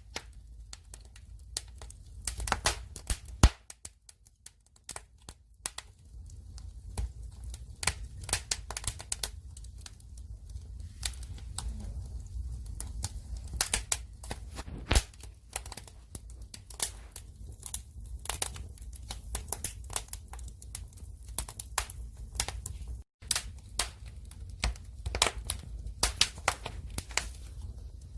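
Firewood burning, crackling and popping in irregular sharp snaps over a low steady rumble. The sound cuts out for an instant about three-quarters of the way through.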